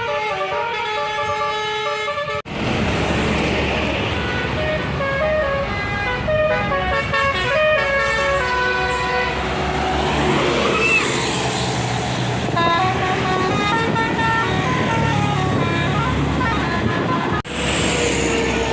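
Tour buses' Basuri 'telolet' multi-tone air horns playing a quick stepping melody of horn notes over engine and road rumble. The sound breaks off abruptly twice, about two and a half seconds in and near the end, where the footage cuts.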